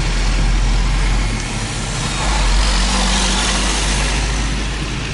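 Car engine and road noise: a steady low rumble under a broad rush, heard from inside a car driving slowly.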